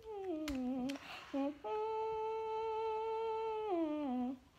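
A child humming a tune: a few notes sliding downward, then one long held note for about two seconds that drops away near the end.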